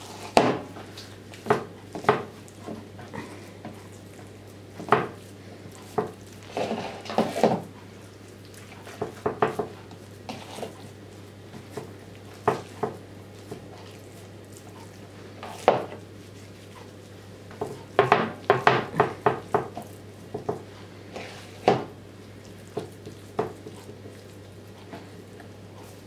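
Irregular clicks and light knocks of hands working fish stuffing: fingers scooping mince out of a ceramic bowl and pressing it into a pike skin on a wooden cutting board, with a few quick runs of clicks.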